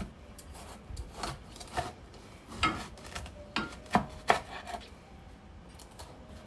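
Chef's knife cutting a bitter gourd in half lengthwise on a bamboo cutting board: a string of irregular crisp cuts and taps of the blade, about eight in the first four and a half seconds.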